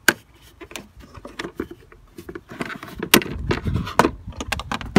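VW T4 plastic air filter box being worked loose and lifted out of the engine bay: a series of sharp clicks, knocks and scraping handling noises, denser and louder in the second half.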